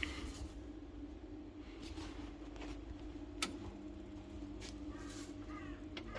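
Biasi gas boiler powered up for testing after a new gas valve is fitted: a faint steady hum, then a click about three and a half seconds in, after which a second, lower steady hum comes on as a motor inside the boiler starts.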